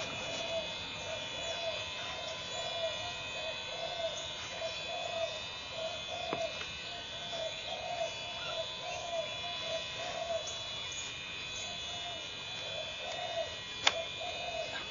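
A steady pulsing drone, about three pulses a second, runs under faint steady high tones. Near the end there is one sharp click.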